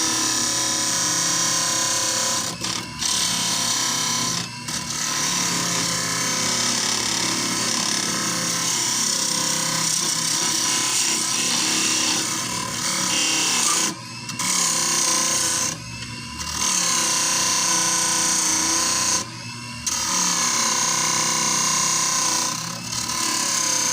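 Wood lathe spinning a manzanita burl blank at high speed while a turning tool hollows it out: a steady motor whine under scraping and cutting of the wood, dipping briefly about six times.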